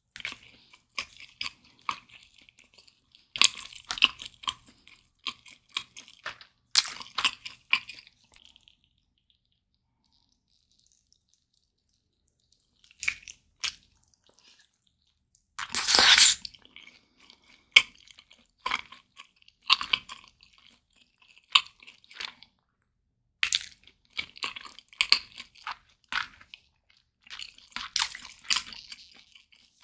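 Close-miked eating sounds: bites into a sauce-glazed roast chicken leg and wet chewing, in clusters of crisp crackling clicks. There is a pause of a few seconds about a third of the way in, and the loudest burst comes about halfway.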